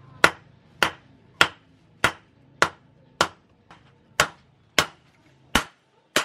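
Hand hammer striking a chainsaw-bar-steel knife blade on a small steel post anvil while forging it: about ten sharp blows at a steady pace of a little under two a second.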